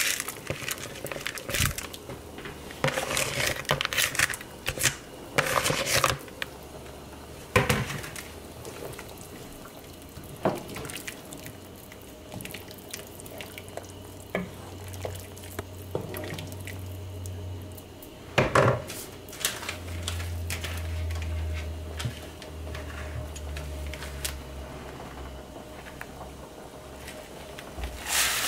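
A wooden spoon stirring chicken soup in a metal pot, with scattered knocks and clatters of the spoon and pot. A low steady hum comes in about halfway.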